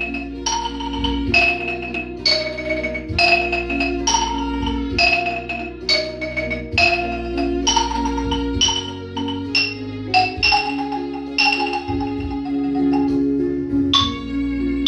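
A melody played on tuned mallet percussion such as a xylophone or metallophone, one struck note every half second to a second, each ringing briefly, over a steady low sustained accompaniment.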